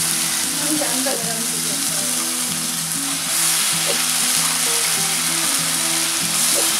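Hot oil and ghee sizzling steadily in a kadai with whole spices, as onion paste is spooned in and the frying gets a little louder partway through. Light background music plays with a melody.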